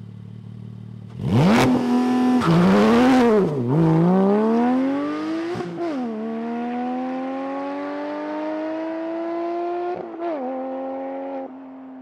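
Porsche 718 GT4's 4.0-litre flat-six through a Soul Performance race exhaust, doing a launch control start with traction control off. The engine holds a steady note, then about a second in jumps sharply louder, its pitch wavering down and up for a couple of seconds. Two upshifts follow, each a brief dip and then a long steady rise in pitch, and the sound drops away near the end.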